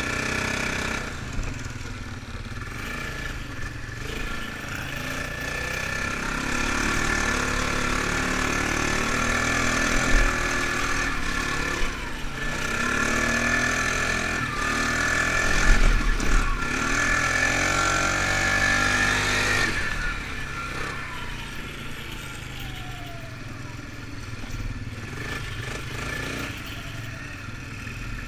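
Polaris ATV engine running under way on a dirt trail, revs rising and falling as it rides. It is loudest through the middle, then eases off after about twenty seconds to a quieter run.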